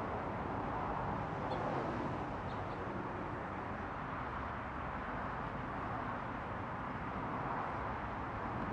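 Steady outdoor background noise with no distinct events, with a few faint bird chirps about one and a half and two and a half seconds in.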